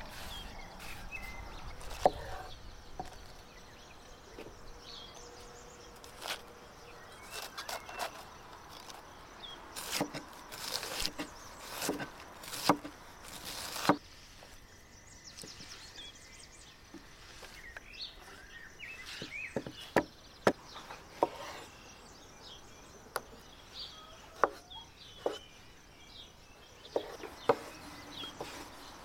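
Hands-on food preparation: irregular knocks and clicks of utensils and kitchenware, with a few sharp louder knocks and a busier rustling stretch about halfway through. A few faint bird chirps are heard in the background.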